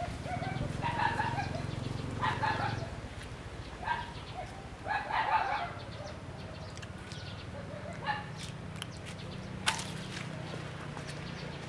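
Chickens calling: several short calls in the first half, over a steady low hum, with a single sharp click about ten seconds in.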